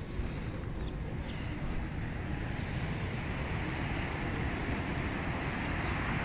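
Wind buffeting the microphone outdoors, a steady rushing noise with an uneven low rumble. Two faint short bird chirps about a second in.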